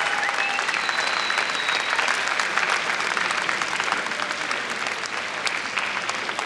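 Arena crowd applauding steadily, a dense patter of clapping that eases off somewhat in the last couple of seconds. A few brief high tones sound over it in the first two seconds.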